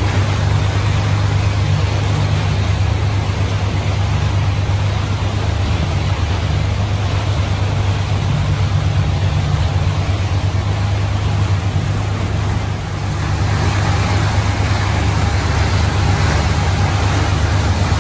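A motorboat engine drones steadily while running at speed, over a loud rush of wind and water. The hiss dips briefly about thirteen seconds in and comes back brighter.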